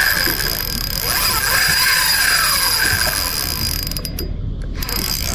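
Spinning fishing reel being cranked in against a heavy hooked fish, a steady mechanical run of its gears under load.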